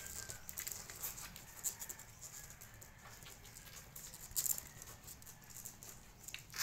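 Two-week-old puppies nursing from their mother dog: faint suckling and rustling of fur and bodies, with a few thin, faint squeaks from the puppies and a brief louder rustle a little past four seconds in.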